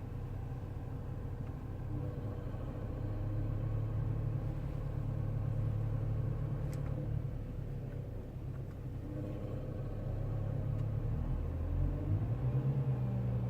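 BMW E92 335i turbocharged straight-six running with a buzzing rattle from the air conditioning system, the buzz following the engine revs. The engine note shifts and rises a little near the end.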